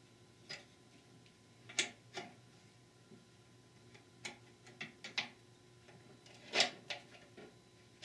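Small metal clicks and taps as a transmission's parking rod and manual valve lever are handled and fitted against the cast aluminium case: a scattering of single ticks, two louder ones about two seconds in and about six and a half seconds in.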